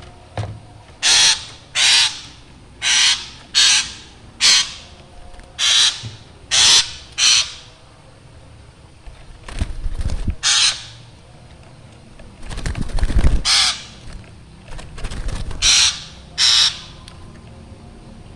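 Black drongo calling: about eleven short, harsh calls, most of them in quick succession through the first half and a few more later on. In between come bursts of low rumbling noise, the loudest a little past the middle.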